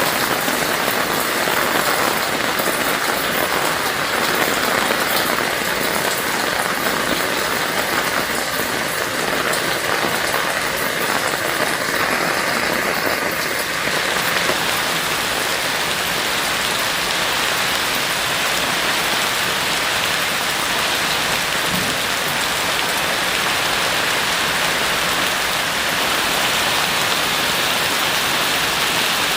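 Heavy rain falling steadily, a dense, even hiss of many drops. Its texture shifts slightly about halfway through.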